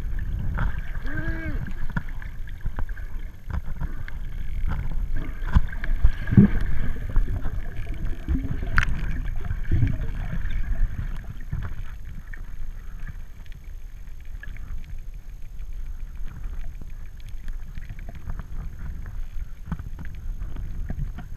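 Muffled underwater noise picked up through a GoPro's waterproof housing: a steady low rumble of water moving past, with scattered knocks and a few short gliding tones in the first half. It is quieter in the second half.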